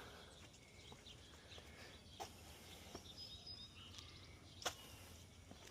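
Near silence: faint outdoor background with a few short, faint clicks, the clearest near the end.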